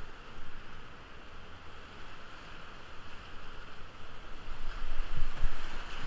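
Rushing whitewater rapids heard from a kayak running them: a steady churning rush of water that swells louder about four to five seconds in.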